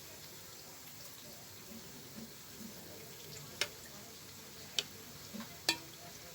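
Faint room noise, then three sharp clicks about a second apart in the second half.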